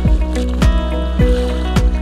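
Background music: an electronic track with a steady thumping beat, just under two beats a second, under sustained chords.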